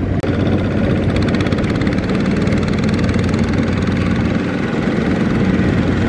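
Single-cylinder diesel engine of a Kubota walk-behind power tiller running steadily under load as it pulls a trailer, with a fast, even beat of firing pulses.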